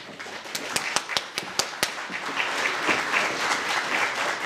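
Audience applauding: a few loud, separate claps at first, filling out after about two seconds into dense, steady applause.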